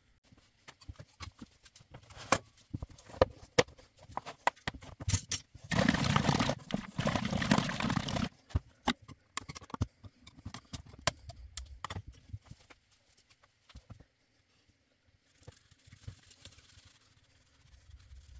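Hollow knocks and clicks of a pine box and a paint tin being handled on a workbench, with a louder stretch of scraping and rattling about six seconds in. Near the end, a soft brushing hiss as black paint is brushed inside the wooden box.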